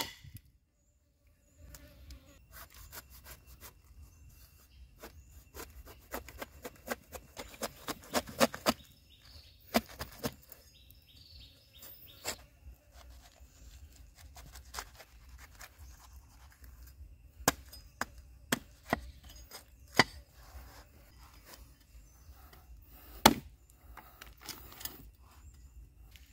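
A cleaver cutting a whole jackfruit on a wooden stump chopping block. Irregular chops and knocks of the blade through the rind into the wood come in a quick run in the first half, then as scattered single strikes, the loudest near the end.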